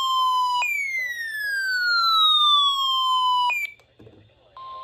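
An electronic siren-like alert tone sweeping down in pitch, about three seconds per fall, jumping back up and falling again, with faint speech underneath; it cuts off about three and a half seconds in. Near the end a steady 1050 Hz NOAA Weather Radio warning alarm tone begins over radio hiss.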